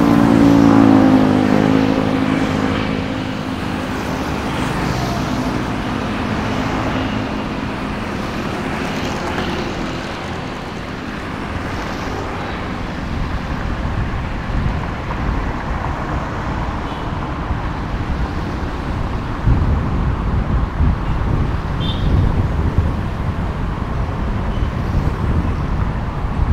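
Road and engine noise of a moving car, heard from inside the cabin. A hum falls in pitch over the first few seconds, then a steady rush of tyres and traffic turns rougher and louder about two-thirds of the way through.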